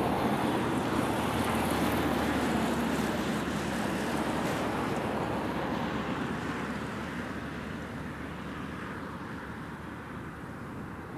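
Airbus A320 airliner's jet engines passing low overhead on final approach. The rushing engine noise is loudest in the first few seconds, then fades steadily as the aircraft moves away down the runway.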